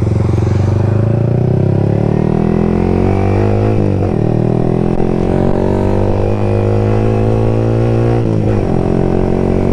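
Yamaha R15 v3's single-cylinder engine running through an open-pipe exhaust under way, its note climbing over the first few seconds, with short breaks about four seconds in and again near the end.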